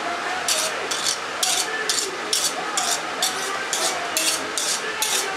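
A kitchen knife being sharpened, its blade scraped against steel in quick, even strokes, about two a second.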